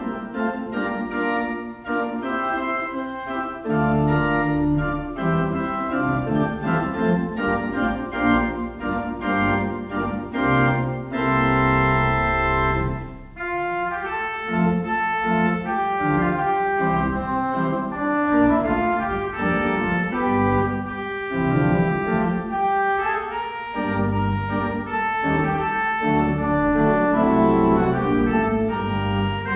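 Church organ playing the closing postlude: sustained chords over low pedal notes that change every second or two.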